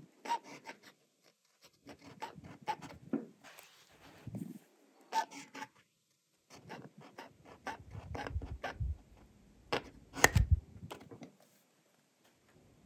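Graf von Faber-Castell Classic fountain pen nib scratching across paper in short writing strokes, with a pause around the middle and the strongest strokes near the end; the writing stops about a second before the end.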